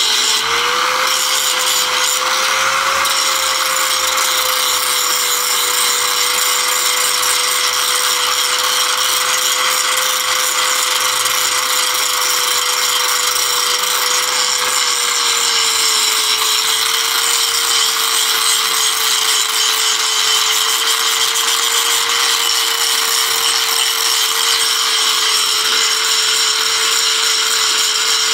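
Electric angle grinder running steadily, grinding steel with a continuous high whine over a hiss. Its pitch steps down slightly about halfway through.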